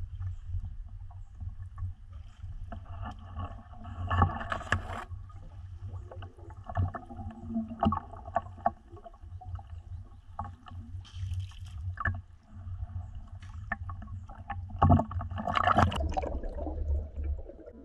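Water sloshing and splashing around a spearfisher in a wetsuit as he wades chest-deep through lake water. There are heavier splashes about four seconds in and again near the end, as he goes under, followed by underwater bubbling.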